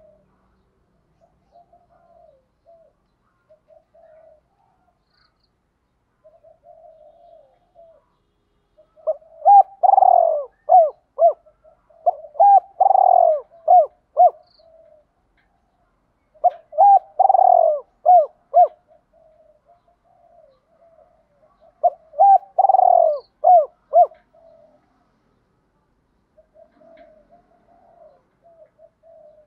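Spotted dove cooing: soft, low coos throughout, broken by four loud, repeated cooing phrases in the middle, each lasting about two seconds.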